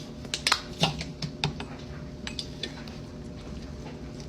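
Kitchen utensils clinking against dishes: a quick cluster of sharp clicks in the first second and a half, then a couple of fainter ones.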